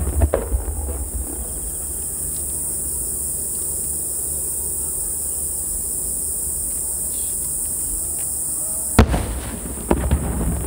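Underwater star mine fireworks: a few crackles of fading stars, a lull with a steady high hiss, then a sharp boom about nine seconds in as a shell bursts at the water's surface, followed by quick crackling.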